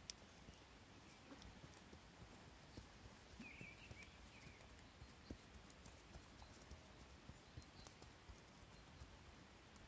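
Faint, soft, regular hoofbeats of a horse trotting on grass.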